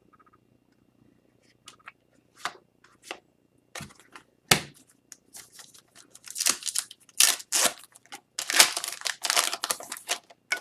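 Hockey trading cards being handled: short rustling and crinkling strokes of card stock and wrapping sliding and flexing, sparse at first and growing denser and louder towards the end.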